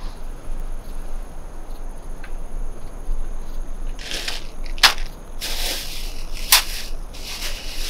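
Rustling of bags and packaging as goods are pulled out and handled, in three bursts from about four seconds in, with two sharp clicks among them.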